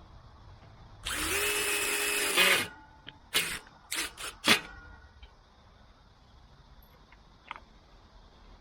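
Power drill driving a self-tapping screw into the gate fitting: one steady run of about a second and a half, its pitch dipping as it stops, followed by four short, sharp bursts.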